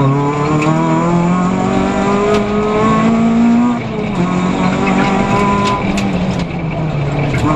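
Peugeot 206 rally car's engine heard from inside the cabin, running hard at stage pace: the revs climb steadily for about three and a half seconds, drop sharply about four seconds in, then hold fairly steady. Occasional sharp ticks sound over the engine.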